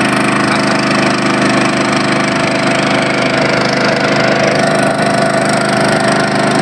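Small engine of a wooden river boat running steadily, pushing the boat along the water.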